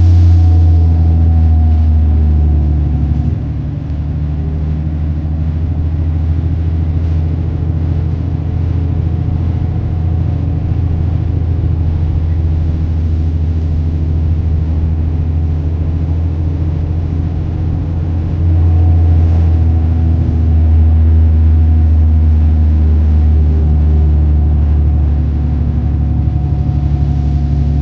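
Steady low engine drone with a few held tones. It drops in level a few seconds in and swells again past the middle.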